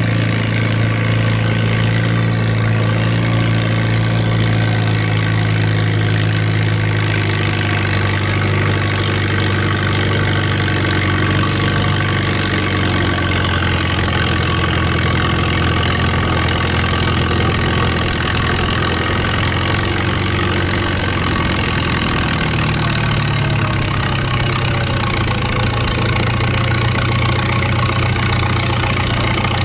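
Antique farm tractor engine running steadily and loudly; its low note wavers and blurs through the middle of the stretch, then settles again.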